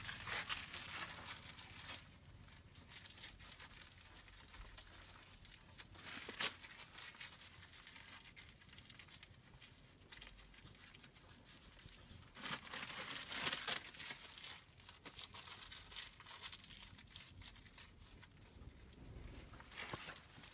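Faint rustling and crackling of cloth rubbing against a handheld phone's microphone, with scattered clicks and a louder rustle about twelve seconds in.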